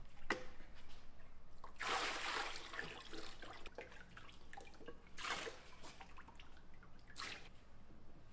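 Liquid splashing in three short bursts, about two, five and seven seconds in, with small clicks and drips between them.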